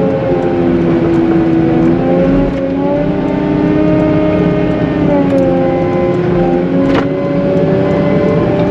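Cat 906M compact wheel loader's diesel engine running under load, its pitch rising about two and a half seconds in and dropping back a few seconds later. A single sharp knock comes near the end.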